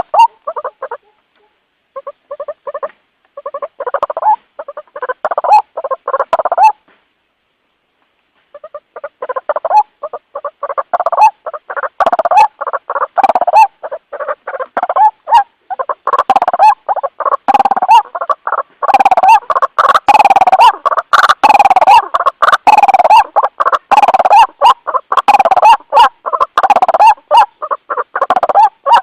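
White-breasted waterhen calling, the rapid repeated 'ruak-ruak' lure call. The calling stops twice for a second or two early on, then runs on without a break and grows denser toward the end.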